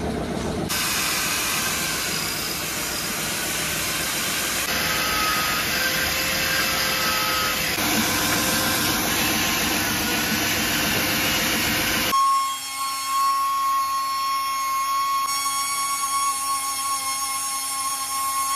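Angle grinder cutting into a skull ornament to open its mouth, a steady grinding noise. About twelve seconds in it gives way to a different, steadier high whine from another power tool.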